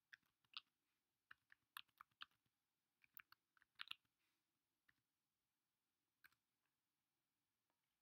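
Faint keystrokes on a computer keyboard: a quick, irregular run of typing clicks over the first four seconds, then a single keypress about six seconds in.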